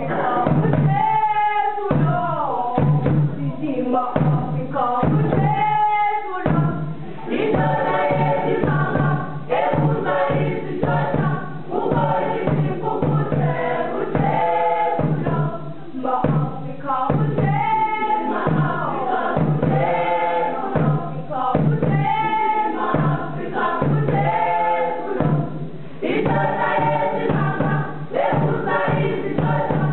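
A school choir of young voices singing together in short phrases over a steady drum beat.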